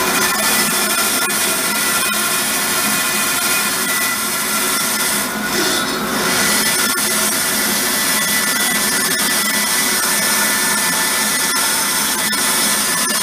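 Bandsaw running steadily with its blade cutting through a wooden blank, sawing it into a round. The cutting noise briefly changes about five seconds in.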